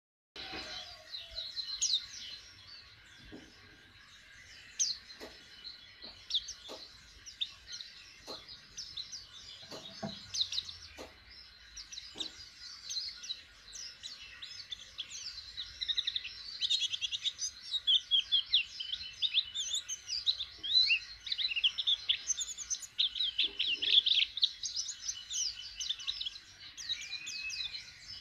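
Caged white-eye (pleci) chirping and twittering in rapid, short high notes, sparse at first and much busier and louder in the second half: a young bird just starting to sing. A few soft knocks come in the first half.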